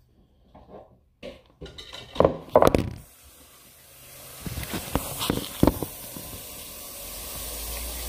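Kitchen clatter: a quick run of knocks and bumps of handled dishes and containers, the loudest about two and a half seconds in, then a steady hiss that sets in about three seconds in and slowly grows, with a few more knocks over it.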